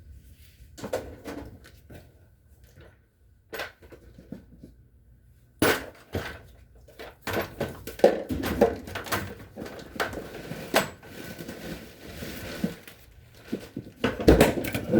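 Clicks, clanks and knocks of hands and tools working on a Whirlpool dryer, with a sharp knock about five and a half seconds in and busier clatter through the second half.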